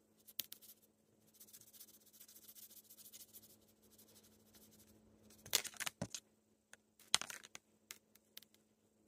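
A plastic toy rustling and clicking as a cat swats at it with its paw. There are two short clusters of sharp crinkles and taps, about halfway through and again a second and a half later, then a few lighter ticks, over a faint steady hum.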